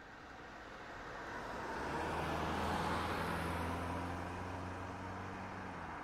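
Motor vehicle engine and road noise swelling in, loudest about three seconds in, with a steady low engine hum beneath, then easing slightly.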